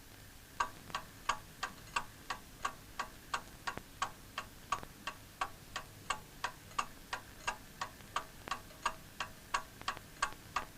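Clock ticking steadily, about three ticks a second, starting about half a second in. The ticks are crisp and fairly quiet.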